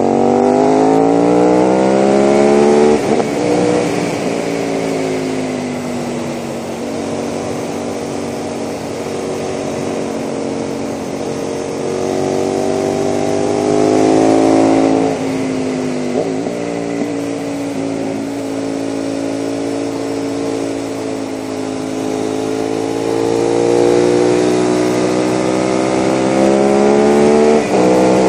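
KTM 990 SMR V-twin with a Leo Vince exhaust under hard acceleration on the open road: the revs climb, drop sharply about three seconds in and again near fifteen seconds as the throttle comes off or a gear changes, then climb again. Steady wind rush on the microphone runs underneath.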